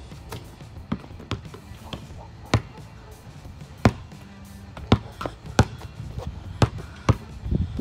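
A basketball being bounced: single sharp bounces at uneven intervals of about a second, with music playing underneath.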